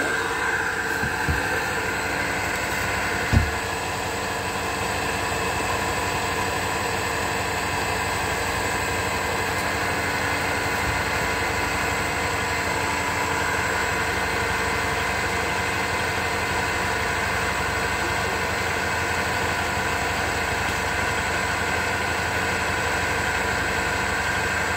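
An engine running steadily at an even speed, with one sharp knock about three seconds in.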